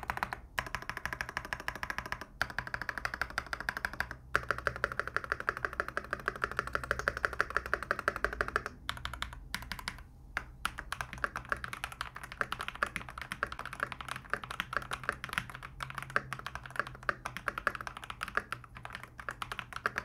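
Fast, continuous typing on a Keychron C2 Pro 8K tray-mount mechanical keyboard with Keychron Super Red linear switches and double-shot PBT OSA keycaps: a poppy, firm clatter of keystrokes, broken by a few short pauses, with the spacebar quite loud and hollow-sounding.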